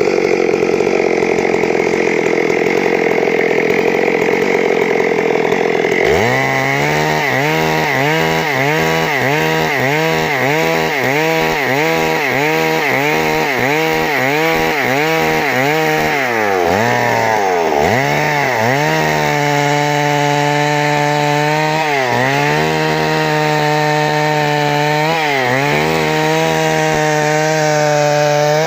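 Stihl MS 382 two-stroke chainsaw running at high speed after a stuck piston has been repaired. For about six seconds it sounds rough with no clear pitch. Then a clear engine note takes over and dips about twice a second for some ten seconds, dips a few more times, and falls away sharply at the end.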